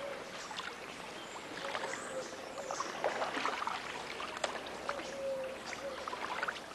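Wooden paddle dipping and pulling through floodwater as a small boat is rowed, with irregular small splashes and drips.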